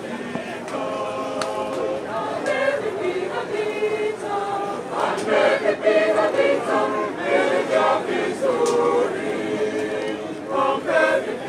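A group of people singing together unaccompanied, in long held notes.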